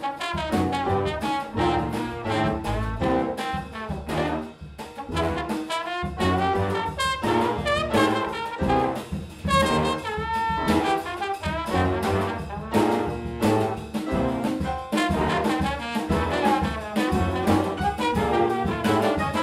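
Big-band jazz: a trombone solo over the rhythm section, with bass and drums keeping a steady beat under the band.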